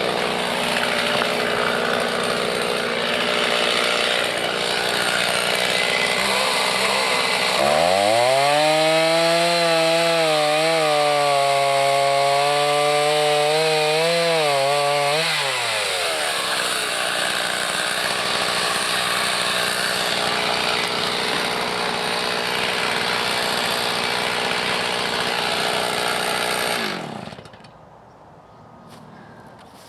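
Chainsaw running, then revved hard for about eight seconds with the pitch wavering as it holds high revs, before dropping back to a lower steady run. The engine stops abruptly near the end.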